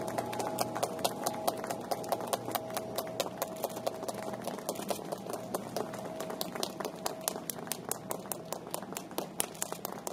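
Many camera shutters clicking rapidly and irregularly from a crowd of photographers, over a steady electric hum from the train that fades about halfway through.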